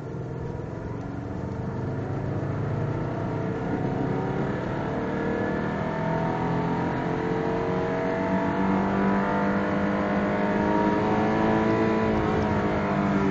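Turbocharged 2.0-litre flat-four of a 2004 Subaru WRX pulling under partial throttle, its pitch rising slowly and steadily as the revs climb. It carries a weird extra sound above 3,000 rpm at part throttle, which a shop put down to bearing wear, later confirmed by oil analysis.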